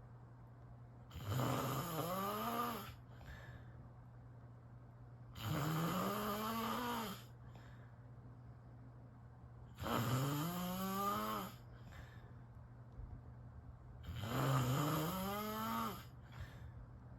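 A sleeping person snoring: four long snores about four seconds apart, each rising then falling in pitch, over a steady low hum.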